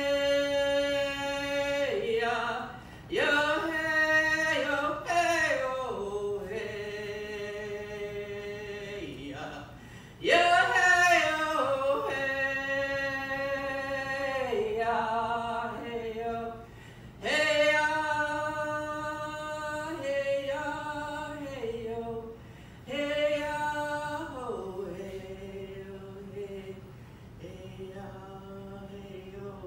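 A woman singing a Shinnecock honoring song unaccompanied, in phrases that start high and step down to long held notes, with a new phrase about every six or seven seconds.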